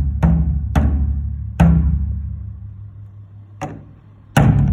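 Japanese taiko drums struck hard, each stroke with a deep boom. After a few strokes, the last about one and a half seconds in, the drum rings out and fades through a pause broken by one lighter stroke. A loud stroke near the end starts the playing again.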